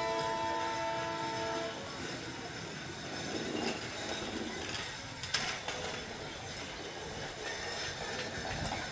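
Diesel locomotive's air horn sounding a blast of several tones at once, ending about two seconds in, then the locomotive's engine running as the train rolls in, with a single sharp clank about five seconds in.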